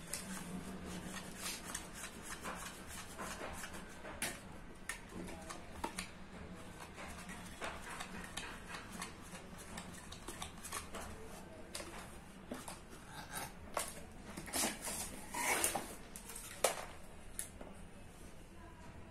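Hands handling a battery charger's metal casing and circuit board: scattered clicks, taps and rubbing of parts and wires, with a cluster of louder knocks near the end as the board comes out of the casing.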